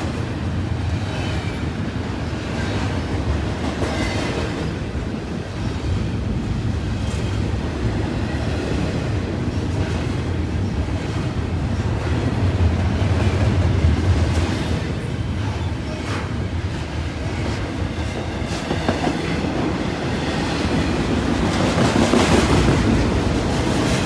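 CN double-stack intermodal freight train's container cars rolling past: a steady rumble and clatter of steel wheels on the rails, swelling louder about halfway through and again near the end.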